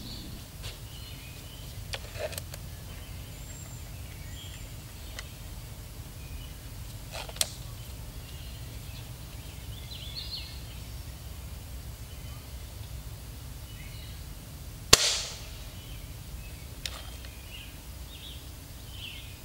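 A Gamo Silent Cat .177 break-barrel air rifle fired once about fifteen seconds in: a single sharp crack with a short tail. A few fainter clicks come earlier, over faint bird chirps.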